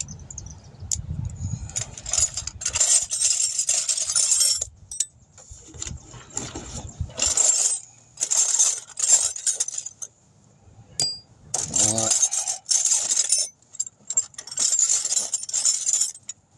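Steel socket extensions and sockets clinking and clattering as they are sorted and handled, in several spells of a second or two with short pauses between.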